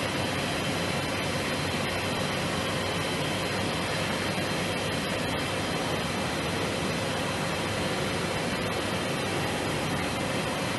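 Machinery running steadily in a production setting: an even mechanical noise with a faint steady hum, no distinct strokes or events.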